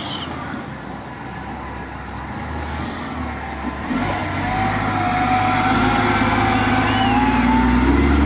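Bulldozer's diesel engine running under work, growing louder about halfway through, with a wavering whine riding over the low rumble.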